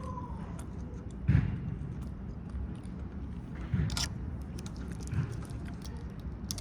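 Steady low background hum with three dull knocks: one a little over a second in (the loudest), one near the middle, and one about a second and a half later.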